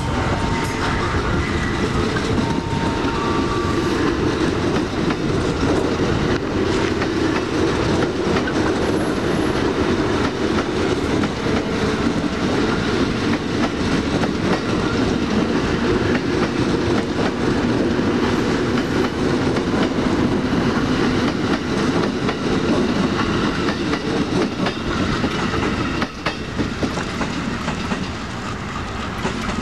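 A shunting train rolling past: passenger coaches, then a CC206 diesel-electric locomotive, with wheels clacking over the rail joints in a steady loud rumble that eases off near the end.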